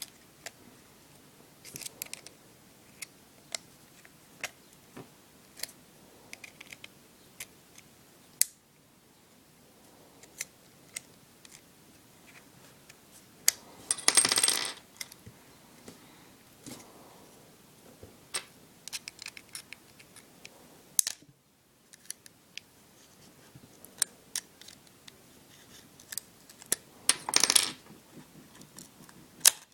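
Small metal tools and iPod parts being handled on a hard surface: scattered sharp clicks and taps, with a longer scraping rattle about halfway through and another near the end.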